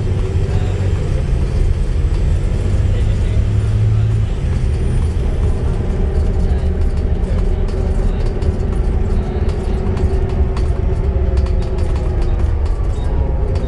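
A Volvo B7TL double-decker bus's drivetrain heard from on board while under way, with a steady whine that the recordist puts down to a bad axle. The deep engine note drops off about four seconds in, and body rattles come through in the second half.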